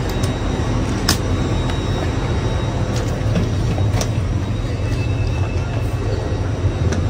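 Steady low hum of a stationary LNER Azuma train heard from inside the carriage, with a few sharp clicks and knocks over it, the loudest about a second in.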